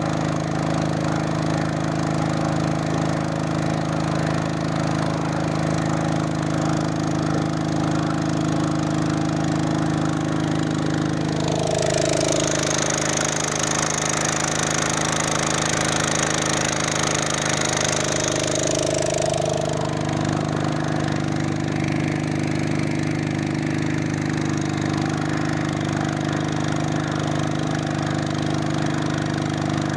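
Honda GX200 single-cylinder four-stroke engine running steadily, driving the fishing boat through a belt and pulley. Midway, for about eight seconds, it gets a little louder, with added hiss and a high whine, then settles back to its steady note.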